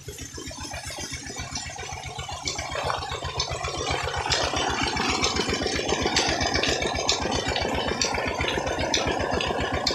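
Tubewell pump engine running steadily with a rapid, even low beat, and water gushing and splashing from its outlet pipe. It grows louder over the first few seconds.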